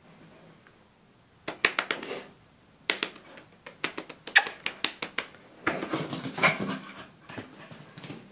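A Schipperke dog moving about, making irregular bursts of sharp clicks and scuffling that start about a second and a half in, with a dense run of quick clicks in the middle.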